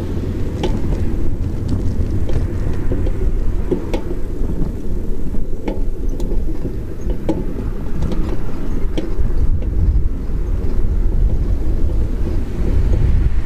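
Riding a bicycle with a handlebar-mounted webcam: a steady low rumble of wind buffeting the microphone and of the road. Light irregular clicks and rattles from the bike and mount come through about once a second.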